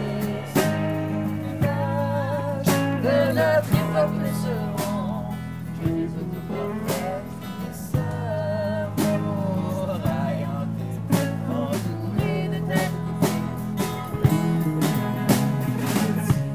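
A small band playing live: acoustic guitar strumming, bowed cello, electric guitar and a drum kit with cymbal hits keeping a steady beat, under a melody line that wavers in pitch.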